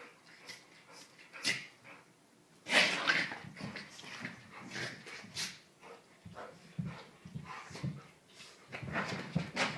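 Two dogs playing, making a run of short, uneven vocal noises such as yips, whines and barks. It starts faintly, grows busy and loudest about three seconds in, and picks up again near the end.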